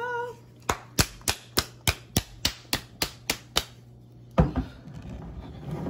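A plastic bottle of lemonade being handled: about a dozen sharp clicks, evenly spaced at roughly three a second. Then, about four seconds in, a louder knock is followed by rustling.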